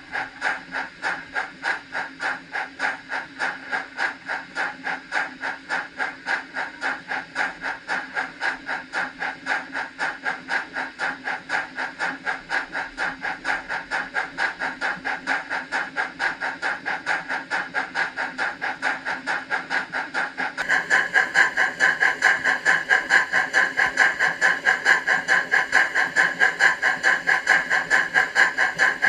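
Rapido Stirling Single model steam locomotive chuffing on a rolling road: an even, hissy chuff about three times a second, kept in step with the puffs of its smoke unit. The chuffs become louder and brighter about two-thirds of the way through.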